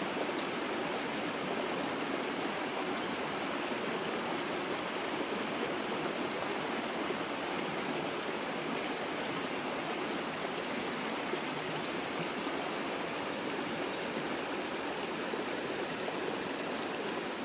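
Shallow stream running over rocks: a steady, even rush of flowing water.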